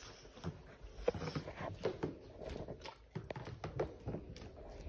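Boxer dog's paws thudding on carpeted floor and down carpeted stairs: a run of irregular soft knocks.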